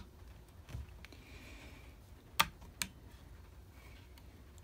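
Two sharp metallic clicks about half a second apart, a little past halfway, with a faint knock before them: the upper receiver of a Henry .22 lever-action rifle is seated back onto the frame while the lever is eased back slightly to shift the bolt.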